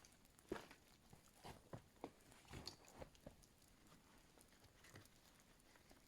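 Near silence broken by a handful of faint, short crunches and clicks in the first three seconds.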